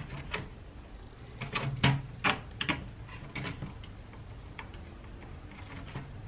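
A series of sharp plastic clicks and taps from hands working at a Dell laptop's plastic bottom case, loudest and most closely spaced around two seconds in.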